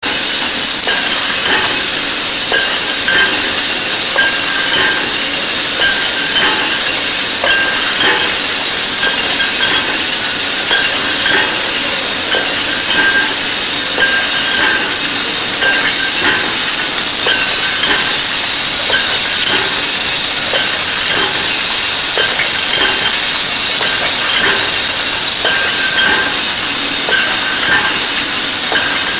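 Cimec triblock rinsing, filling and capping machine running on glass bottles: a steady loud hiss, with glass bottles clinking and mechanical clicks and knocks repeating about once a second as the bottles are indexed through.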